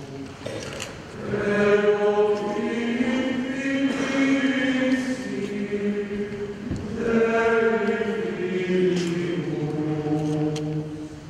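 Male choir singing a slow liturgical chant or hymn in long held phrases, with brief breaks between phrases about a second in and again around six and a half seconds in.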